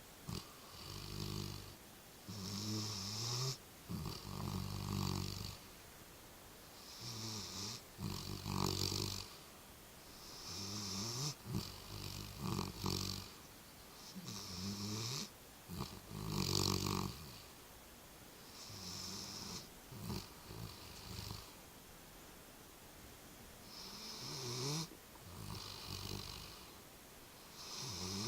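Sleeper snoring in a repeating rhythm, one snore about every two seconds, some louder than others.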